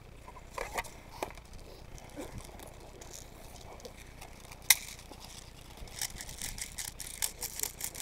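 Scattered clicks and rustles of gear being handled close to the microphone, with one sharp, much louder click about halfway through and a quick run of clicks near the end.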